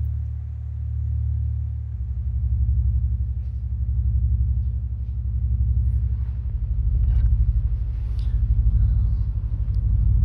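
A loud, low rumbling drone held on a few deep tones, pulsing rapidly and evenly, that steps to new pitches about two, six and a half and nine seconds in, with faint scattered clicks above it.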